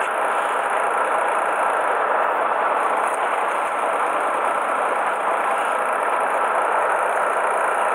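Steady, even drone of a small fishing boat's engine running.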